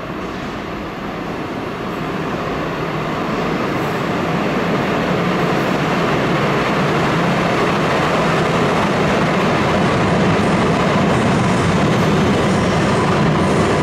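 Stadtbahn light rail train coming out of the tunnel and pulling into an underground station. Its running rumble grows louder over the first few seconds, then holds steady as the cars roll along the platform, with a faint high whine near the end.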